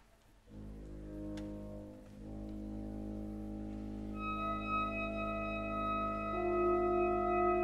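Symphony orchestra playing slow contemporary classical music. A soft sustained low chord enters out of near silence about half a second in, and high held ringing tones join around four seconds in as the sound slowly grows louder.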